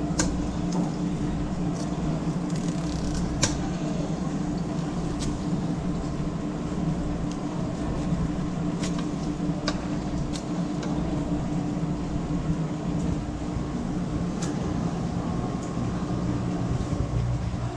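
Steady low machine hum, with scattered sharp clicks and taps as a knife works a flounder against a wooden board and plastic sheet.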